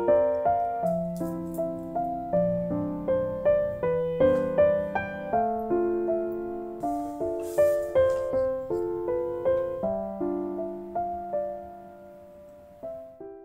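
Background piano music: a gentle melody over soft chords, each note struck and fading. It thins out near the end, with a last chord just before it stops.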